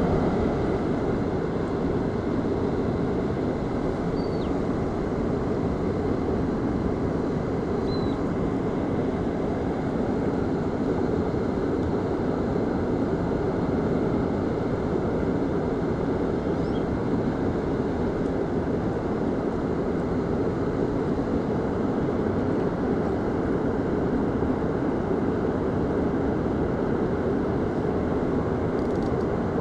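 Steady rushing noise of moving water and surf at a river mouth, even and unbroken.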